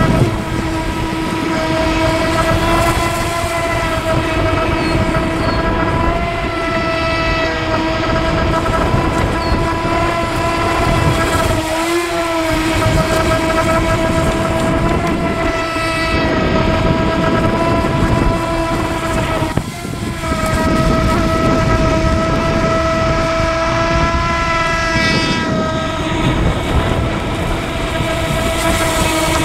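Electric motor of an AquaCraft MiniMono RC speed boat at speed: a steady, high whine over the rush of water, which dips briefly twice, about twelve and twenty seconds in.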